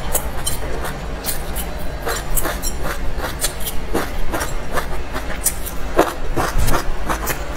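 Close-miked eating: chewing a mouthful of filled pastry, with irregular wet clicks and crackles from the mouth, and the chopsticks clinking and scraping on a ceramic dish. A steady low hum runs underneath.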